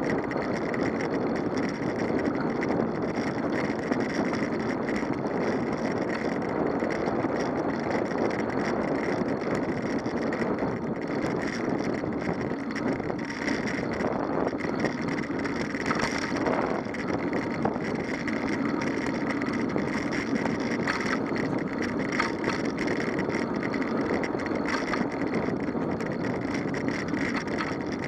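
Steady muffled rumble of a ride along a tarmac road: tyre noise and wind on the microphone, with a few faint light rattles.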